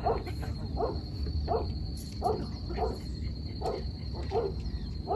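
An animal calling over and over, short calls about one every 0.7 seconds, with a steady high thin tone underneath.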